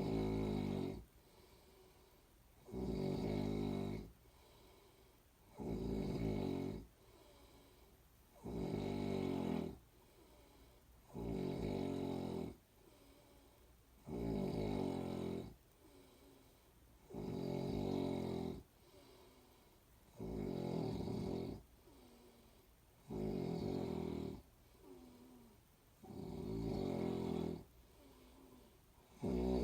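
A person snoring in a steady rhythm, one snore about every three seconds, with quieter breathing between the snores.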